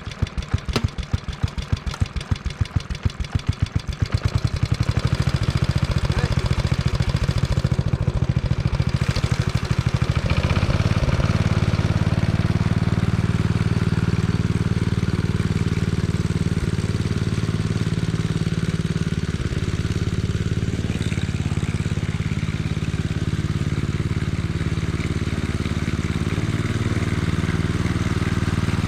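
Locke Triplex reel mower's engine, just started, running slowly with separate, evenly spaced firing beats, then picking up speed from about four seconds in and running steadily at speed from about eleven seconds in.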